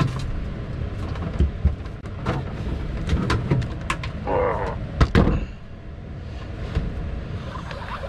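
Clunks and knocks of heavy lithium battery cases being wrestled into a boat's battery compartment, with a man's drawn-out groan of effort about halfway through, over a steady low rumble.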